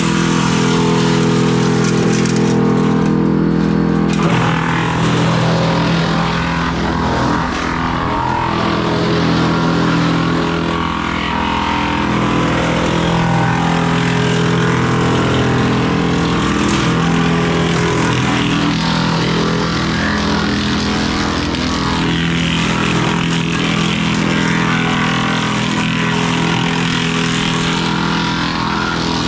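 An engine runs steadily and loudly throughout, its pitch holding even.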